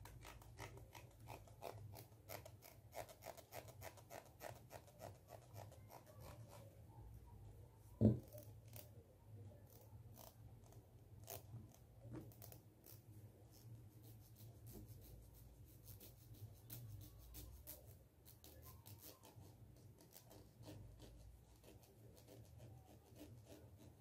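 Plastic comb scratched against and close to a microphone: rapid dry clicks and scrapes of the teeth, thick for the first several seconds and sparser after. One loud thump about eight seconds in.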